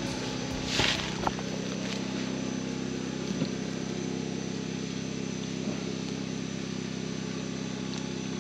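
A small engine running steadily at a constant speed, giving an even low hum. A brief rush of noise comes about a second in.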